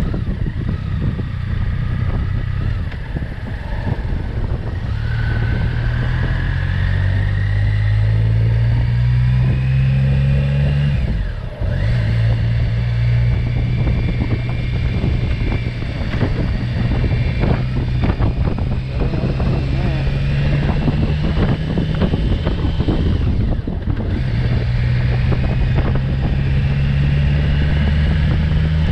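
Motorcycle engine running under way, its pitch rising as it pulls through a gear, with short breaks in the sound at gear changes about eleven seconds in and again near twenty-four seconds. Wind buffets the microphone throughout.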